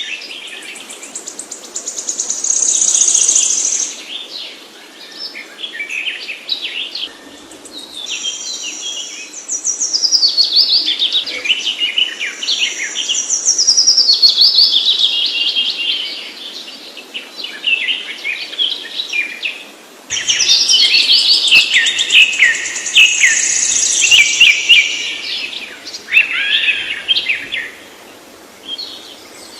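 Songbirds singing: rapid high chirps and trills in bursts of a few seconds with short gaps, the recording changing abruptly about twenty seconds in.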